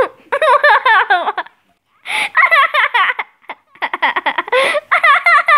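A small child laughing in high, rapid giggles, in three bouts with short breaths between them.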